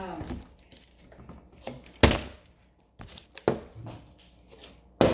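A partly filled plastic water bottle thunking down on a wooden tabletop during bottle flips, the loudest landing about two seconds in, with two lighter knocks later.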